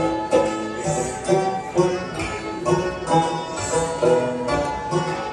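Instrumental Tibetan traditional music from a small string ensemble led by a hammered dulcimer (gyumang), its struck notes ringing on in a steady, repeating melodic phrase.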